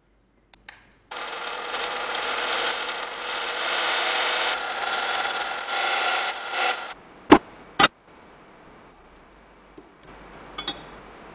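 Drill press boring a hole through a steel channel with a twist bit: a steady cutting noise with a high ringing for about six seconds. Then two sharp metallic knocks about half a second apart.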